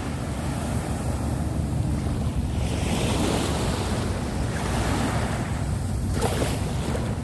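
Sea waves washing onto the shore, the surf hiss swelling about three seconds in and again near the end, over a steady low rumble of wind on the microphone.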